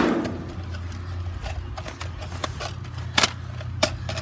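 Scattered sharp plastic clicks and knocks from a jammed Nerf blaster being worked by hand, over a low steady hum.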